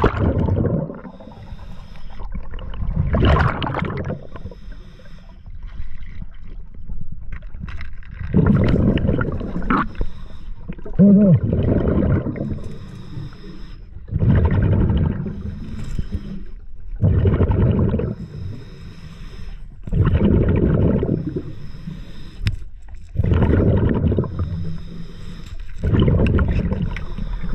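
Scuba diver breathing through a regulator underwater: bursts of exhaled bubbles gurgle out about every three seconds, with quieter gaps between breaths.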